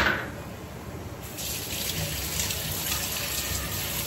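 A sharp knock at the very start, then a kitchen tap running from about a second in, the stream splashing through poha (flattened rice) in a mesh sieve into a stainless steel sink as the poha is rinsed.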